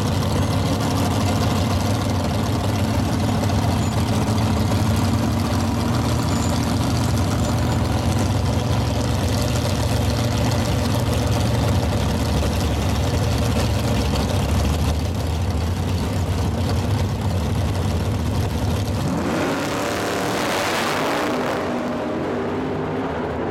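A big-block Chevy V8 in a 1967 Camaro idles steadily while staging at the drag strip. About 19 s in it revs up hard and launches, its pitch rising quickly, and the sound thins and fades as the car pulls away down the track.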